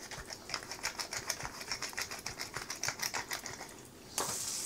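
Pepper mill grinding over a plate: a stream of rapid, irregular small clicks. About four seconds in, rapeseed oil and butter in a frying pan start sizzling, suddenly and louder.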